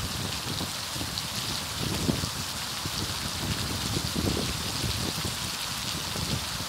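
Steady rain falling on gravel desert ground, rocks and puddles: an even hiss of drops, with uneven low rumbling underneath.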